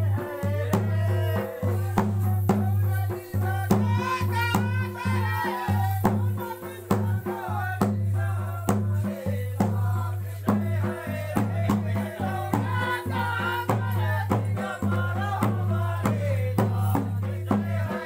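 Rana Tharu Holi folk music: voices singing a melody over regular drum strokes and shaken rattling percussion.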